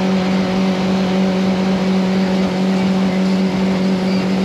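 Jet boat underway: its engine drones at one steady pitch over the rush of water and wind.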